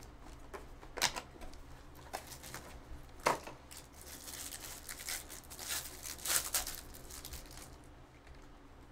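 Foil trading-card pack wrapper being torn open and crinkled by hand, after a few sharp clicks; the crinkling is densest from about four to seven and a half seconds in, then dies down.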